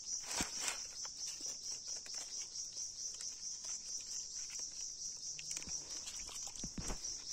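Steady high-pitched chirring of insects, with scattered knocks and rustles of stones and leaf litter being handled.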